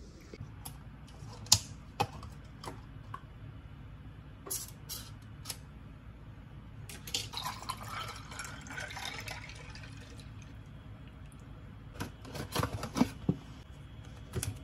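A drink poured from a plastic bottle over ice in a glass, running for about three seconds midway. Scattered light clicks and taps of handling come before it. Near the end there is a cluster of knocks and clicks as a cake in a plastic case is set down on a wooden plate.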